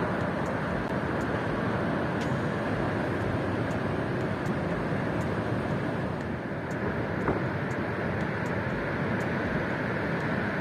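Steady outdoor rushing noise with no distinct events, easing slightly about six seconds in.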